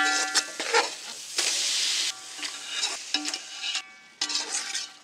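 A metal spatula scraping and stirring mutton pieces through frying masala in a large metal pot. The pot rings with each scrape, and the masala sizzles in hot oil.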